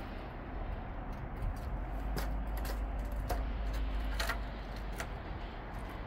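Footsteps crunching on dirt and gravel, heard as a few scattered clicks over a steady low rumble.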